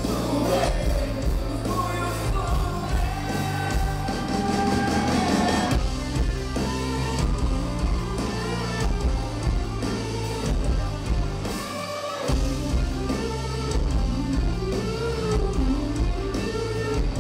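Rock band playing live: lead singing over electric guitars, bass and drums. A long held sung note in the first few seconds, then shorter sung phrases.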